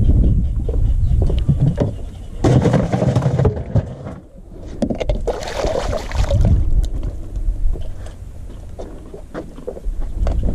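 Water splashing as a largemouth bass is let go at the side of the boat and kicks away at the surface, in two noisy bursts, the second about five to six seconds in.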